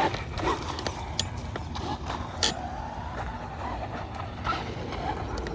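Traxxas Rustler 4x4 VXL RC truck's brushless electric motor whining as it drives, its pitch rising and falling with the throttle, with a few sharp clacks in the first half.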